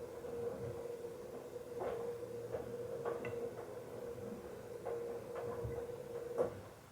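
Bauknecht Super Eco 7615 washing machine running, with a steady hum from its inverter motor and scattered knocks and clicks from the turning drum. The sound stops with a last knock about six and a half seconds in.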